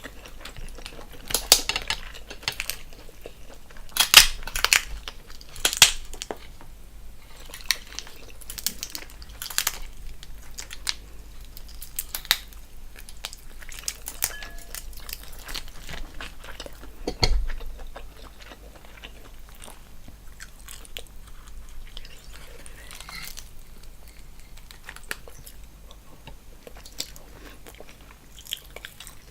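Close-miked eating sounds of a person chewing and biting into a seafood boil: sharp, crunchy clicks, loudest in the first six seconds and again at about 17 seconds, then softer, quieter chewing.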